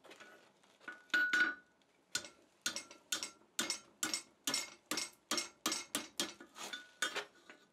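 Hand hammer striking a red-hot 3/8-inch round steel bar over the anvil horn, bending it into the U-shape of a chain link: a run of light metallic blows, about two or three a second, some leaving a faint ring.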